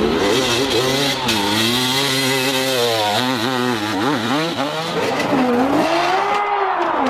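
Motorcycle engine revving, its pitch falling and rising repeatedly as the throttle is worked, with a quick warble of short rev changes around the middle.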